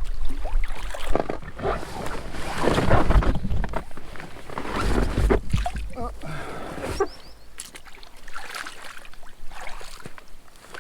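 Paddle strokes and water splashing and sloshing as a packraft is paddled in toward the shore. It goes quieter after about seven seconds.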